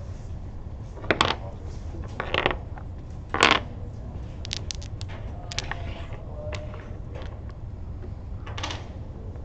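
Domino tiles clacked down one after another onto a wooden table as a trick is played: three sharp clacks in the first four seconds, then a run of lighter clicks and one more clack near the end.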